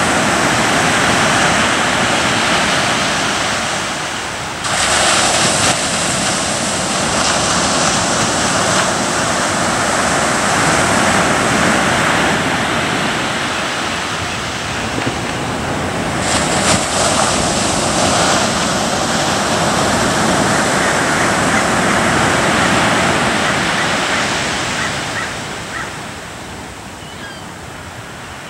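Ocean surf: a continuous rushing wash of waves, with sudden louder surges about five seconds in and again around sixteen seconds, easing off near the end.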